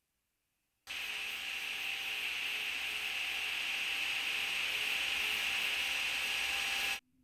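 Steady white-noise hiss that switches on abruptly about a second in, holds level, and cuts off suddenly near the end.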